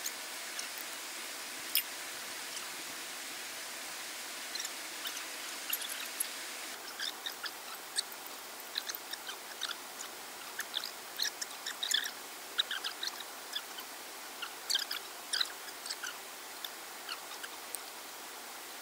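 Steady hiss of running water, with many short high chirps and ticks over it that come more often from about a third of the way in.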